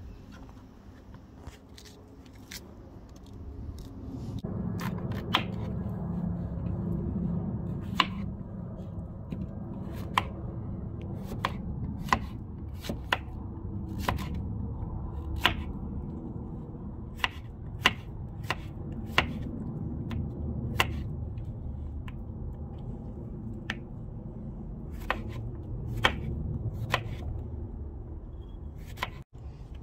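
Kitchen knife slicing a courgette on a wooden chopping board: a sharp tap of the blade on the board with each cut, irregular, about one a second, over a low background rumble.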